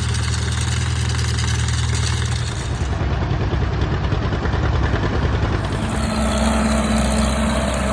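An engine running steadily, its note changing a little about a third of the way in and again about three quarters of the way through.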